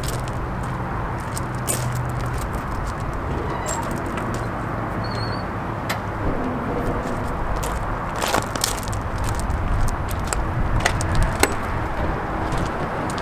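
Scattered clicks and knocks of a Mack Granite truck's tilt hood being unlatched and swung open, then the cab door being opened, over a steady low rumble. The sharpest knocks come in the second half.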